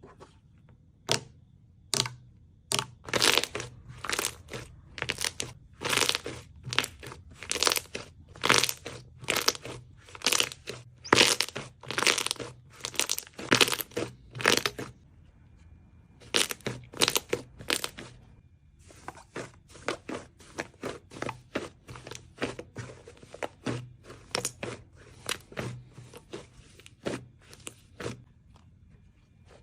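Slime being squeezed and pressed by hand, giving a quick run of sharp crackling, crunching pops at about two a second. It pauses briefly about halfway, then goes on softer.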